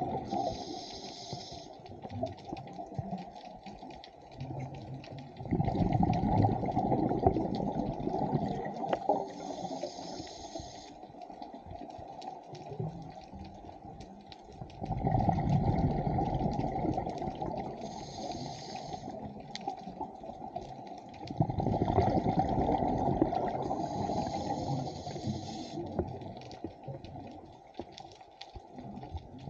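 Scuba diver breathing through a regulator underwater: a short hiss on each inhale, then a long bubbling rush of exhaled bubbles, repeating about every eight seconds.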